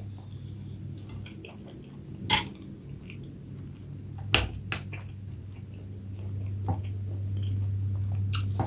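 Eating with utensils: a few sharp clinks of a spoon or fork against a dish, the loudest two about 2.4 and 4.4 seconds in, over a steady low hum that grows a little louder near the end.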